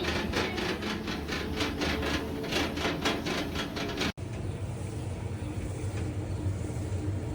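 A small portable clothes dryer running: a rapid, even clatter of about four to five strokes a second, then after a cut about four seconds in, a steady low machine hum.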